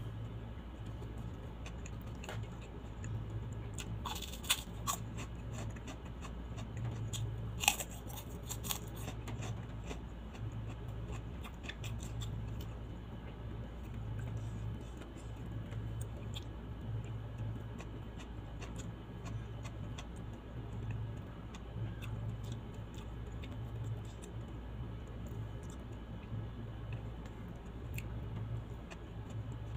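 Close-miked eating sounds: fingers picking through rice and fish on a plate, with scattered sharp clicks and crackles, loudest about 4 and 8 seconds in, over a low hum that pulses about once a second.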